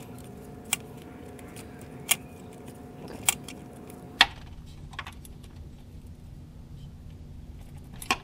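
Sharp metallic clicks and clinks from hand tools and a hose clamp as an intercooler hose clamp is loosened under a car: about five spread out, the one about four seconds in the loudest. A faint steady hum underneath stops at that same moment.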